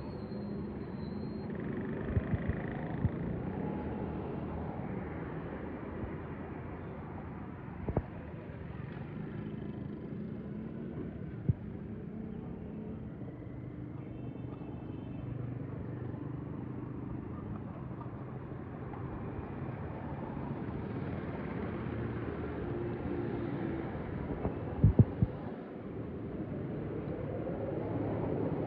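Steady low rumble of street traffic, with a few short sharp knocks: a cluster a couple of seconds in, single ones around 8 and 11 seconds, and the loudest pair near 25 seconds.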